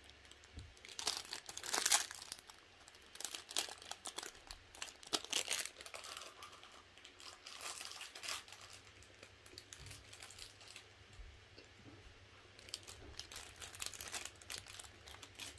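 A foil-lined plastic wrapper crinkling and tearing as it is handled and opened by hand, in irregular bursts of crackling with quieter pauses between.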